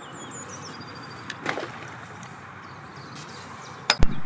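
Steady outdoor hiss of breeze over open water, with a few high bird-like chirps in the first second and a sharp knock just before the end.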